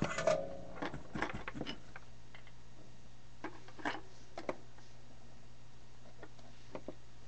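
Light clicks and taps of small parts and tools being handled on a workbench, busiest in the first two seconds and then a few single clicks, over a steady low hum.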